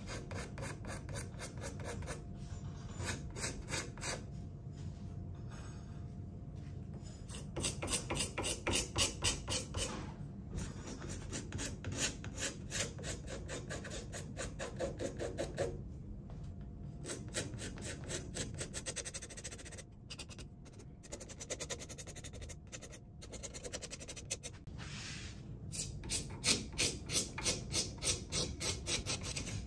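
Quick back-and-forth abrading strokes on a wooden drawknife handle, about three a second in runs with short pauses, stripping its varnish and paint off in streaks.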